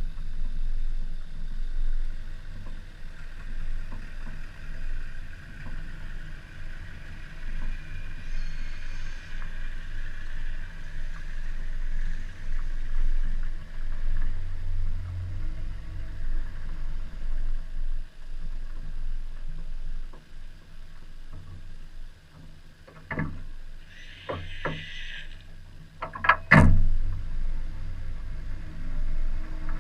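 Chevrolet Cavalier being driven hard: a steady low rumble of engine and road, with a few sharp knocks in the last several seconds, the loudest about three seconds before the end.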